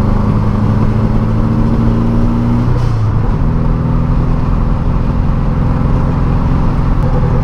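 Turbocharged 1700 cc air-cooled VW Beetle flat-four heard from inside the cabin, running steadily under way on the highway. About three seconds in the engine note breaks off briefly and then settles again, as at a gear change.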